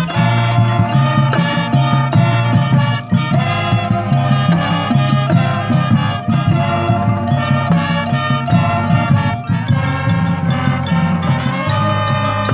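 Marching band playing a loud full-ensemble passage, sustained chords over a low bass line.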